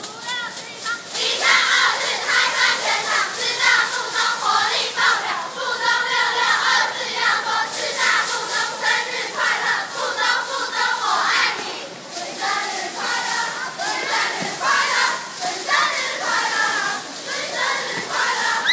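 A cheerleading squad of teenage girls chanting a cheer in unison: loud, rhythmic shouted phrases from many high voices at once, each phrase about a second long with short breaks between.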